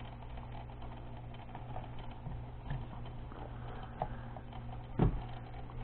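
Faint wooden clicks and taps as a small wooden model truck is handled and turned on its display base, with a dull thump about five seconds in, over a steady low hum.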